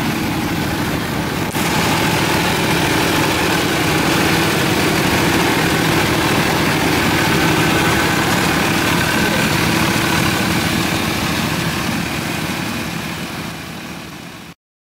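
MV Agusta F4 750S inline-four motorcycle engine idling steadily at its exhaust muffler. It fades near the end, then cuts off suddenly.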